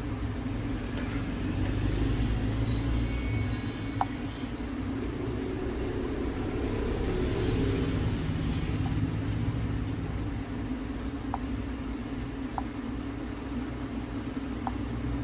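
Ringtone playing through the freshly repaired loudspeaker of a Realme C11 phone, mostly a steady low-pitched sound with a few faint ticks: the speaker, which had been crackling and nearly silent, is working again.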